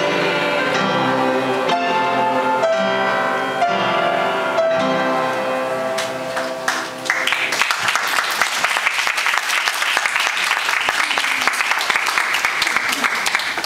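Upright piano played as a duet by a child and an adult, the piece ending with a final chord about six and a half seconds in. Audience applause follows and lasts until near the end.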